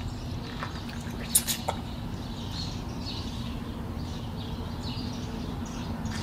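Small birds chirping in the background over a steady low hum, with a few sharp clicks about a second and a half in.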